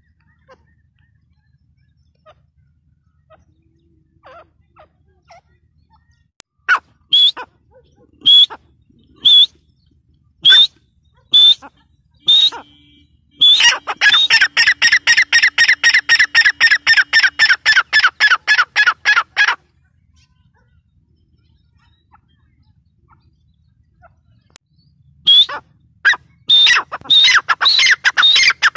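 Female grey francolin (teetar) calling: sharp single notes about a second apart that quicken into a fast run of repeated notes lasting about six seconds, then after a pause the notes start again and speed up.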